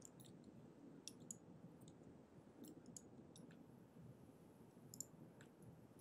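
Near silence with faint, scattered keystrokes on a computer keyboard, a dozen or so sharp clicks at uneven intervals.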